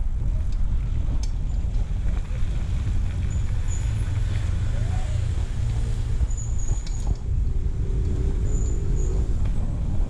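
Heavy wind buffeting on the microphone and a steady rumble from riding a bicycle fast down a steep street, with a few short clicks along the way.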